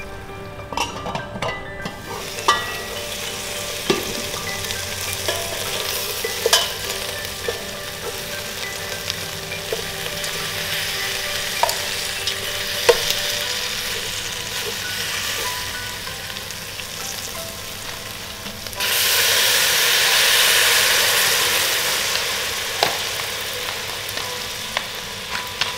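Whole chicken sizzling and frying in a steel stockpot, with sharp clicks of metal tongs against the pot now and then. About three-quarters of the way through the sizzle jumps suddenly louder, then eases back over a few seconds.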